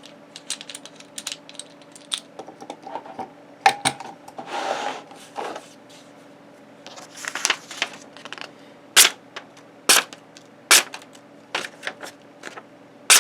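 Clicks, knocks and brief scrapes of a folding knife being unclamped from a guided sharpener and handled. Several sharp single snaps come in the second half.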